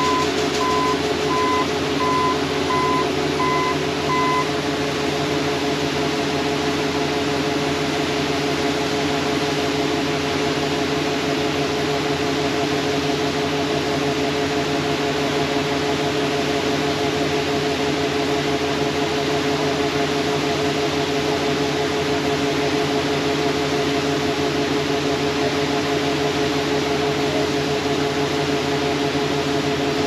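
Farm machinery running steadily at working speed: the John Deere 9670 STS combine's engine and unloading auger and the tractor engine, while corn pours into the grain cart. For the first four seconds a beeping alarm sounds about twice a second, then stops.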